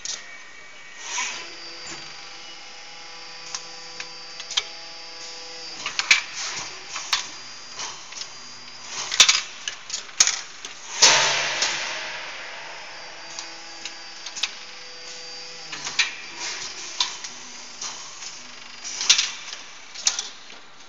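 Automatic gear cold-forging press line in operation: a steady machine hum with irregular metallic clicks and knocks from the feed mechanism. About eleven seconds in comes a loud hiss that fades over a second or two, typical of a compressed-air blast from the pneumatic lines.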